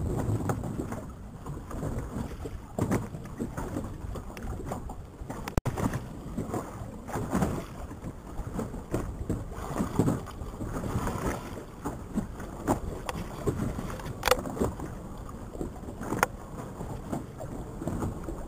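Sea water lapping and slapping against a small boat, with irregular splashes.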